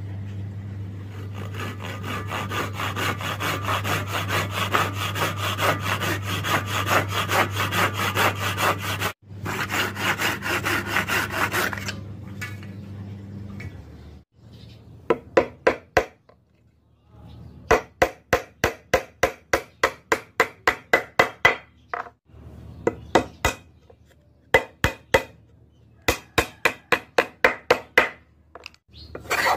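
Handsaw cutting through a softwood board in quick, even back-and-forth strokes for about twelve seconds, with a brief break partway. After a pause, a claw hammer taps on wood in quick runs of sharp blows with short gaps between the runs.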